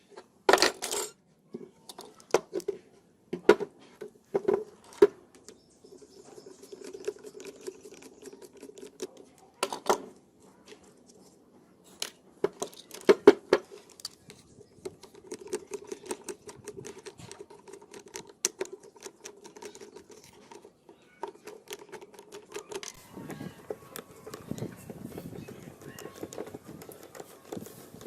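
Small metal parts clinking and knocking on a hard surface: a scattered series of sharp taps and clatters, with a rougher scraping noise near the end.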